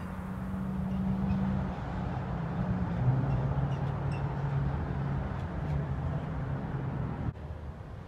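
Low, steady motor-vehicle engine hum over street noise. Its pitch drops a step about two seconds in, and it cuts off abruptly near the end.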